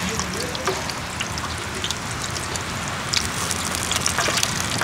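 Tofu pieces frying in a wide pan of hot oil: a steady sizzle with scattered small crackles and pops.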